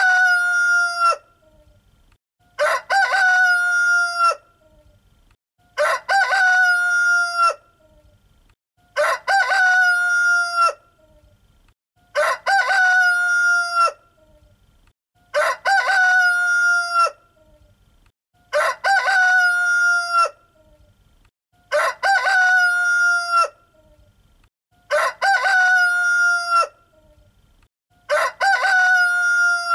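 A rooster crowing cock-a-doodle-doo over and over, one crow about every three seconds, each one the same: a short rising start, a long held note, then a drop at the end.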